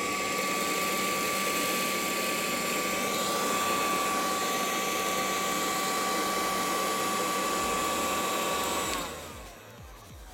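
Homemade cordless vacuum cleaner, driven by a cordless screwdriver's motor, running with a steady whine and rushing air as it sucks up rice. About nine seconds in it is switched off and spins down with a falling pitch.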